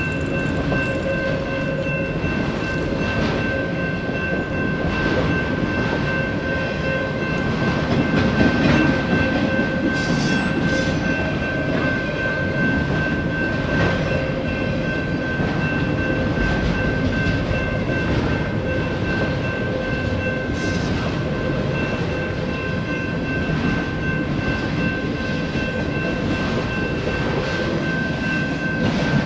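A long freight train of autorack cars rolling steadily past a road crossing: a continuous rumble of wheels and cars, with a few steady high-pitched tones running under it.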